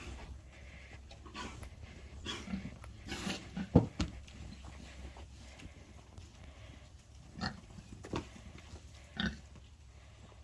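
Pigs grunting in short, scattered bursts as they eat their feed, with two sharp knocks about four seconds in.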